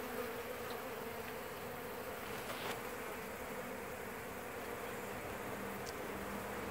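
Honeybees buzzing in a steady hum around the entrance of a hive box: a large colony just emptied in from a cut-out and not yet settled.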